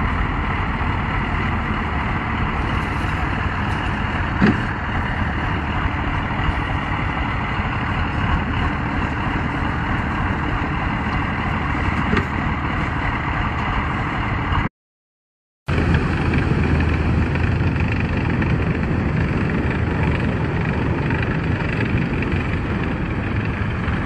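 Engine of a tracked all-terrain vehicle running steadily, with one short knock about four and a half seconds in. The sound cuts out completely for about a second past the middle, then similar steady engine noise carries on.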